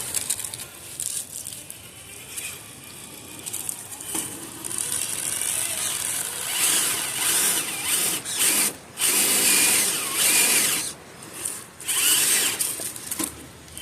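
Traxxas TRX-4 RC crawler's electric motor and geared drivetrain whirring in several throttle bursts, with short stops between them.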